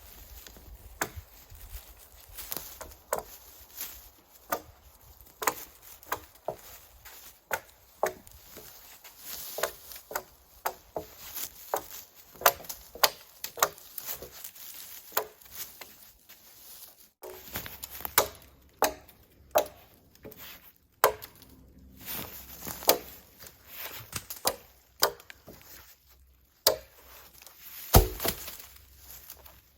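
Wood being chopped with a series of sharp blows, about one to two a second, with a brief break partway through.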